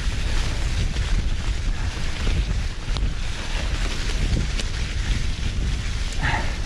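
Wind rushing over the microphone of a riding mountain biker, with a hardtail mountain bike's tyres rolling and crackling through a thick layer of dry fallen leaves on a forest trail. A short higher-pitched sound comes about six seconds in.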